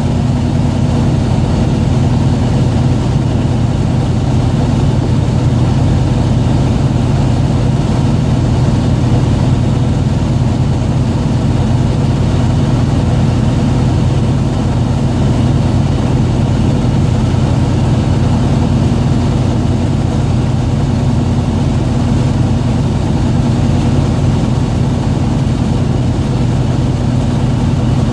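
Fishing boat's engine running steadily, a loud, even low hum heard from on board.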